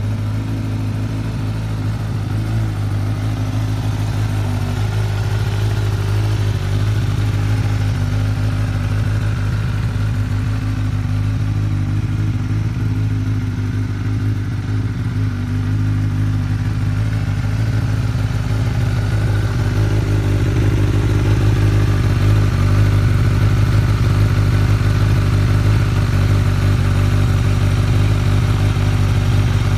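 Suzuki GSX-S1000's inline-four engine idling steadily, holding an even pitch with no revs.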